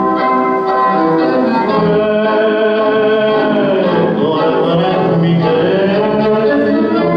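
Tango music with violins playing a sustained melody; about four seconds in, one line slides down in pitch and back up.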